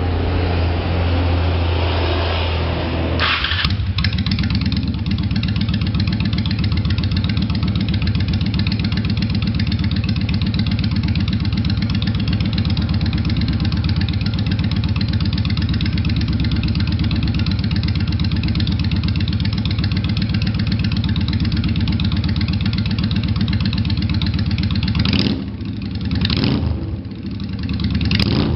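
An Eleanor-style Ford Mustang's V8 engine is cranked and catches about three seconds in. It then settles into a steady, rumbling idle, and is blipped a few times near the end.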